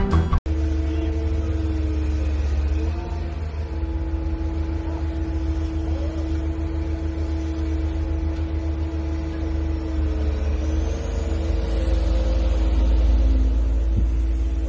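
Diesel engine of a Caterpillar wheeled excavator running steadily, a low rumble with a constant whine over it. A burst of music cuts off abruptly about half a second in.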